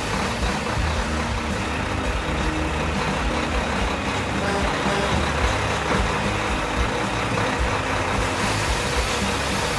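Truck-like engine running steadily.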